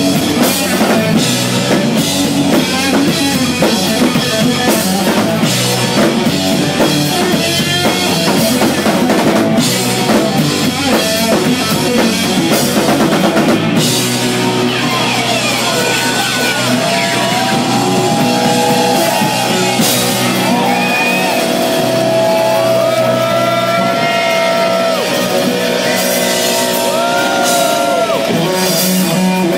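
A live rock band playing loud in a club: drum kit with frequent cymbal hits, bass and electric guitar. About halfway through the cymbals thin out and the electric guitar takes a lead with long bent notes.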